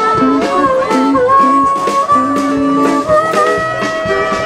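Instrumental background music led by guitar, with a steady beat.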